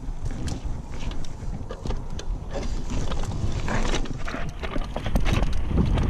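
Wind buffeting a mountain bike rider's GoPro microphone as low rumble, with the tyres rolling over a dry dirt trail and the bike rattling and clicking over the bumps. A brief louder hiss of tyres on loose dirt comes about halfway through.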